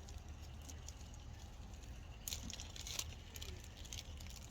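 Faint handling of small carburetor rebuild parts: a few light clicks and a short rustle about two seconds in, over a steady low hum.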